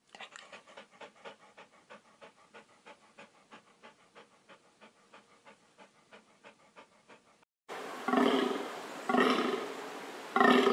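Wolf panting rapidly and faintly, about three breaths a second. About three-quarters of the way in, a reindeer takes over with loud, deep grunts about once a second.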